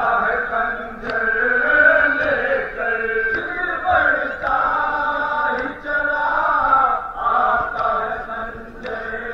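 Men's voices chanting a Shia mourning lament together, the chant rising and falling in phrases, with a few sharp slaps of hands striking chests in matam.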